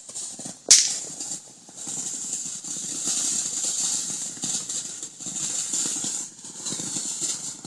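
Small handheld fireworks: one sharp snap less than a second in, then a hissing, crackling spray that carries on for about six seconds.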